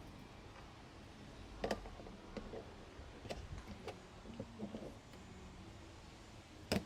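Scattered light clicks and knocks of small parts and tools being handled during the pump repair, spaced irregularly, with the sharpest knock near the end.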